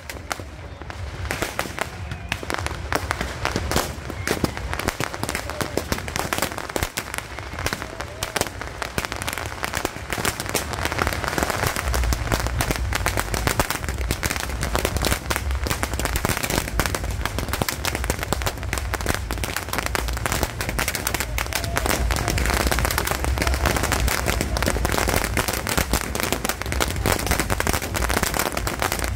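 Beehive fireworks (a bank of bottle rockets and firecrackers) going off in a dense, continuous barrage of crackling bangs. It builds up within the first couple of seconds and grows louder and heavier from about twelve seconds in.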